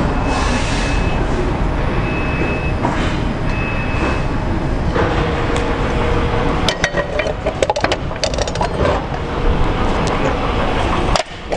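A steady rushing noise, then from about seven seconds in a run of light metallic clicks and knocks as the Triton's front lower control arm is lowered on a jack and its ball joint comes free of the knuckle. The rushing noise cuts off suddenly near the end.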